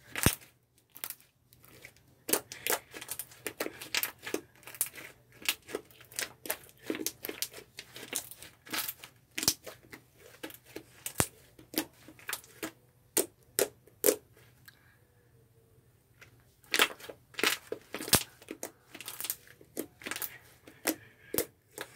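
White slime being kneaded and squeezed by hand, giving irregular sticky pops and crackles, with a short lull about two-thirds of the way through.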